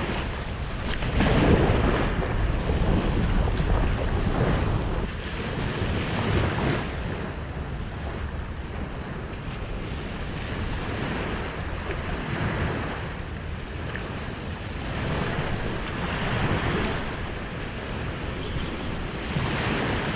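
Surf washing onto a beach in swells every few seconds, with wind buffeting the microphone.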